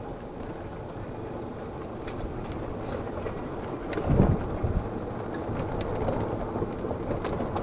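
Yamaha golf cart moving along a paved path: steady running and road noise with wind on the microphone, and a brief louder rumble about four seconds in.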